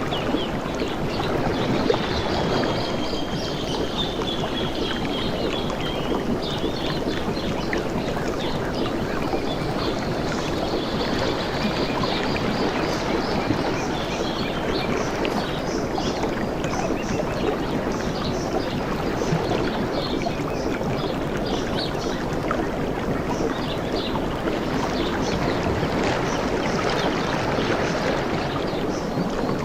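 Ocean water lapping and sloshing steadily, with faint high chirping above it.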